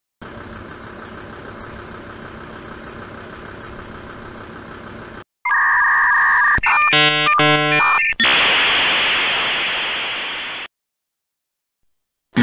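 Edited-in quiz sound effects: a steady low hum for about five seconds, then a two-note electronic beep, a short electronic jingle of quick stepped tones, and a loud hissing rush that fades away.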